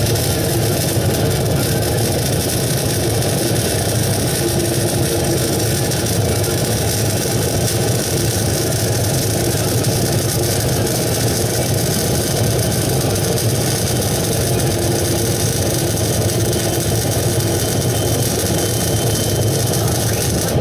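Welding equipment running steadily: a constant low hum under an even hiss, with no pauses or changes in level.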